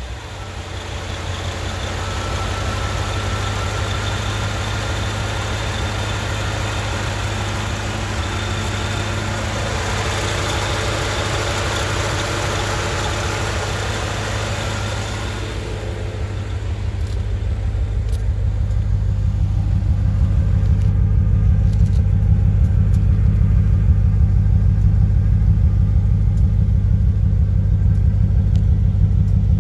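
1995 Corvette's V8 engine running at idle, the owner's example of an intermittent misfire. About halfway through, a higher hiss drops away and the low engine note becomes louder.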